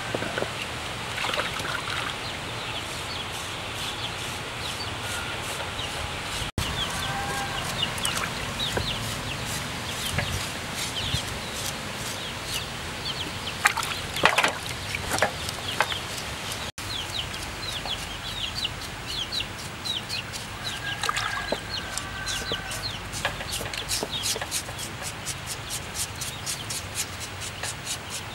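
Chickens clucking and cheeping over and over, with water splashing and hands rubbing and scrubbing a cow's head in a basin of water. The sound cuts out for an instant twice.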